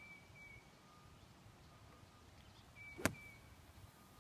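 A golf club strikes the ball out of a wet, firm sand bunker with one sharp thud about three seconds in.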